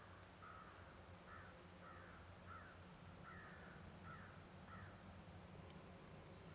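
An American crow cawing faintly, about seven caws in an even series, stopping about five seconds in.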